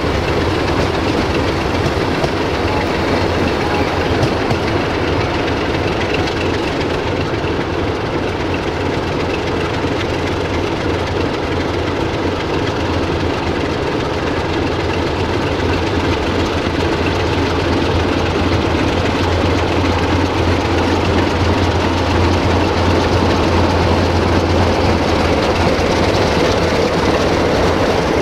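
Pair of Electroputere LDE2100 (060-DA) diesel-electric locomotives drifting slowly up to and past the listener, a steady low engine drone that grows gradually louder as they close in.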